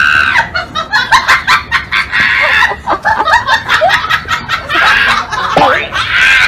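Loud, rapid chicken-like clucking and cackling, a comic sound laid over the clip, with many short sharp strokes.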